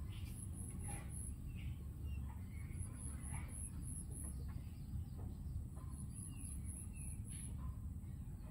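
Chickens clucking now and then, in short scattered calls, over a steady low rumble.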